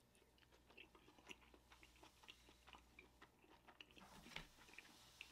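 Faint, close-miked chewing of a steamed dumpling: soft, wet, irregular mouth clicks, growing a little louder about four seconds in.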